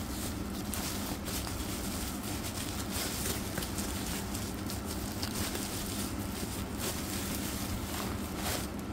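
Plastic bubble-wrap packaging crinkling and crackling in the hands as it is handled and unwrapped, a steady stream of small sharp crackles.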